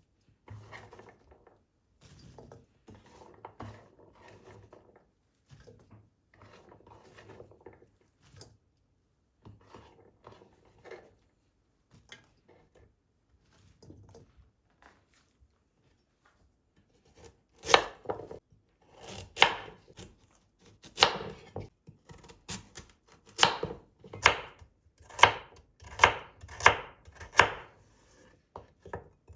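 Soft handling and rustling, then from a little past halfway a knife chopping on a cutting board in sharp, steady strokes about one a second, coming a little faster near the end.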